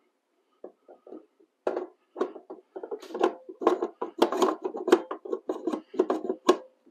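Rapid, irregular metallic clinks and knocks with a short ringing tone: the new helical cutterhead being handled and worked into the housing of a DeWALT 735 thickness planer.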